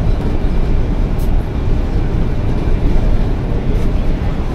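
Otokar Vectio C bus on the move, heard from inside the cabin: steady engine and road rumble, with a brief high click about a second in.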